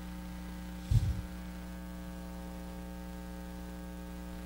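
Steady electrical mains hum in the sound system, with one short low thump about a second in.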